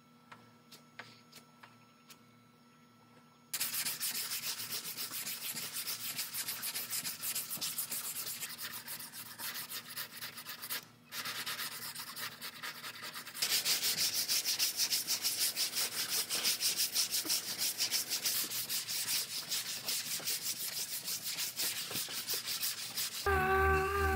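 Hand sanding body filler on a car door with a sanding block: rapid back-and-forth rubbing strokes that begin about three seconds in, stop briefly near the middle, and get louder soon after. Music comes in just before the end.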